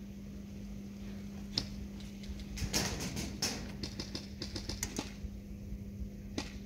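Airsoft guns firing. There is a single sharp shot about a second and a half in, then a string of rapid clicking shots for about two seconds, and one more shot near the end.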